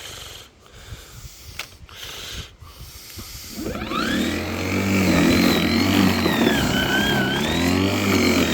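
Worx 42 cm cordless lawnmower's electric motor starting about three and a half seconds in. It spins up in a rising whine, then runs steadily, with the pitch sagging briefly as the blade meets the grass.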